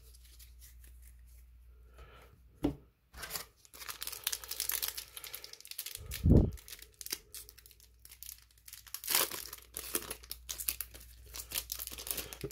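A foil trading-card booster pack wrapper crinkling and being torn open by hand, starting about three seconds in after a single click, with a dull thump about six seconds in.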